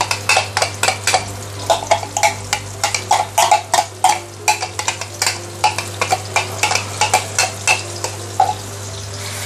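A utensil scraping and clinking against a glass bowl, several quick strokes a second, as the last of a sambal chili paste is scraped out into a stainless steel wok. A steady low hum runs underneath.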